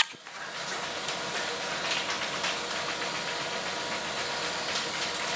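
Steady hissing room noise with a faint hum.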